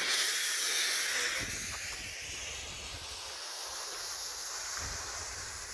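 Green visco fuse, three strands tied together, hissing steadily as it burns down toward a bundle of firecrackers. The hiss is loudest for the first second and a half, then continues a little quieter over a low rumble.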